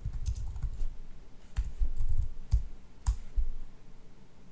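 Typing on a computer keyboard: irregular quick runs of key clicks and thumps.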